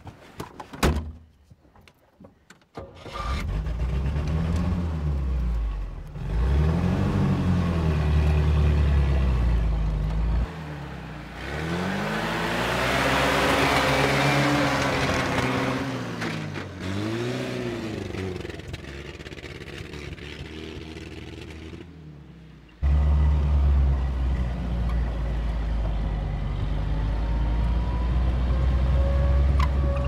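Engine of an old military off-road vehicle revving hard, its pitch rising and falling again and again as it is driven fast through the gears. A few clicks and a thump come about a second in, before the engine comes in. Midway a rush of noise swells as the vehicle passes close, and the engine jumps abruptly louder about three-quarters through.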